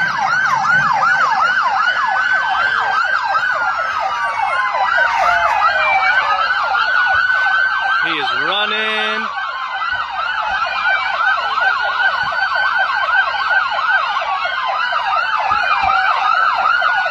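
Several police car sirens sounding at once: a fast yelp, about four sweeps a second, overlapping slower rising and falling wails. A brief lower sweeping tone cuts in about halfway through.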